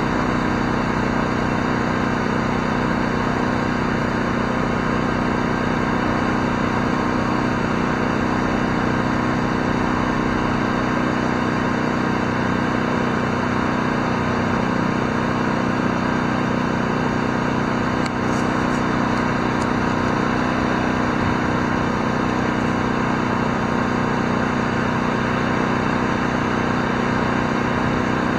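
An engine idling steadily at an even speed, without revving, throughout.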